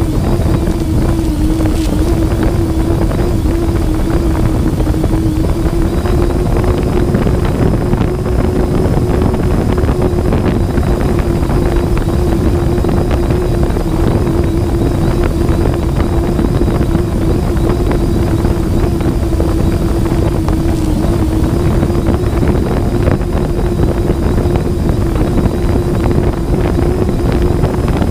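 Electric motors and propellers of a camera drone humming at one steady pitch, with wind rushing over the microphone.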